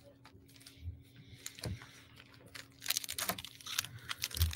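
Foil wrapper of a baseball trading-card pack being crinkled and torn open: scattered crackles and ticks, thickening into a dense crinkle in the last second and a half.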